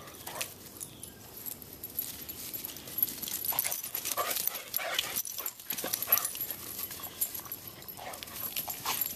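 Two dogs play-fighting, with short, scattered dog noises and scuffling, busiest in the middle stretch.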